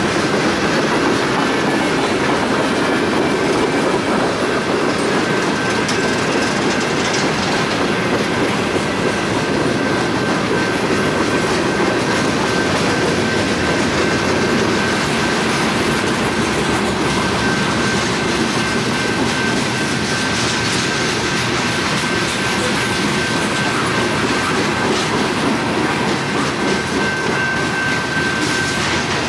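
Norfolk Southern freight train cars rolling past at close range, wheels clacking over the rail joints with a steady high-pitched wheel squeal throughout.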